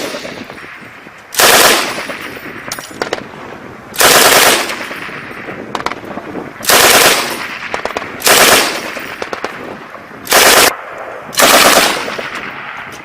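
M240B 7.62 mm belt-fed machine gun firing six short bursts, each about half a second long and a second or two apart. Each burst trails off in a fading echo.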